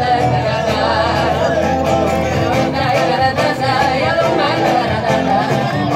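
Live Roma folk band: women singing at the microphones over strummed acoustic guitars, with a steady beat.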